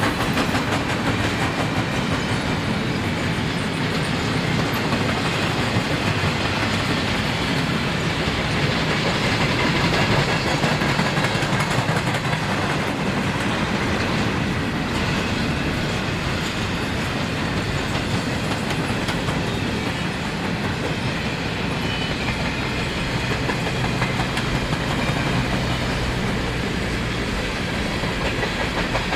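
Train rolling past with steady wheel-on-rail noise and clickety-clack over the rail joints.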